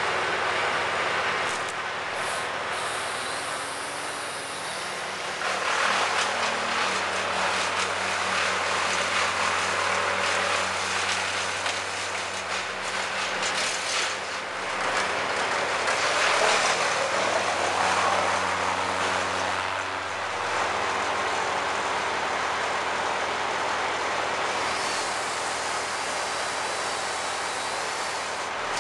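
An engine running steadily, its pitch shifting in steps, with several surges of louder noise.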